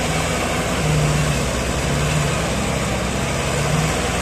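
Tractor diesel engines labouring under load as a Kubota tractor tows a John Deere 5050D stuck in deep mud, its rear wheels spinning. The low engine note swells and fades about once a second over a steady rushing noise.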